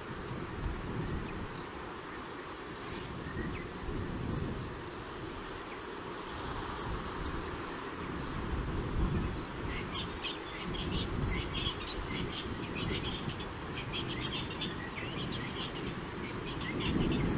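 Bush ambience: faint high insect calls, and from about ten seconds in a busy run of quick, high bird chirps, over a steady low rumble.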